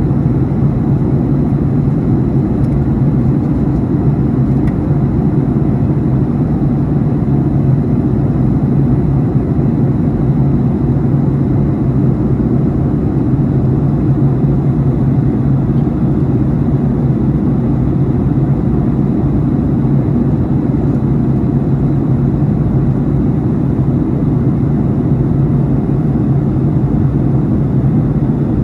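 Jet airliner cabin noise in flight: a steady, loud roar of engines and rushing air with a low hum, unchanging throughout.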